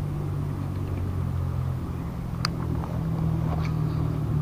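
A steady low engine-like hum, with a single sharp click about halfway through and a couple of faint ticks shortly after.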